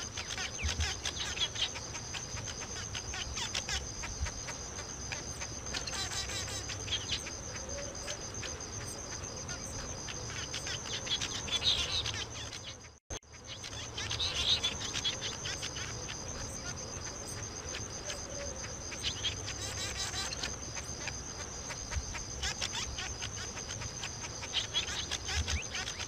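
Birds chirping and chattering in bursts every few seconds over a steady, high-pitched insect drone, with a brief drop-out about halfway through.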